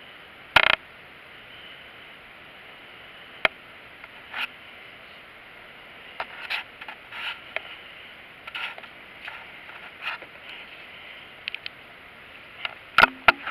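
Scattered short knocks and rustles over a steady hiss, the sound of a handheld camera being moved about in brush. The loudest knock comes about half a second in, and another cluster comes near the end.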